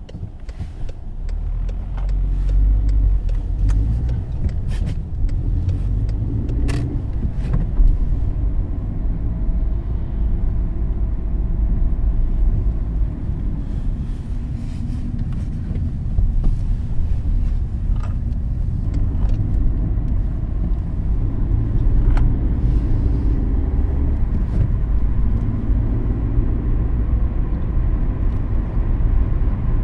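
A car being driven, with a steady low rumble of engine and road noise. Short clicks or knocks sound at a few scattered moments.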